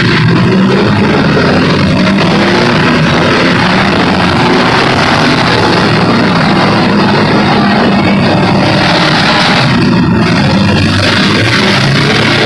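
Several demolition derby cars' engines running and revving together, a loud steady din.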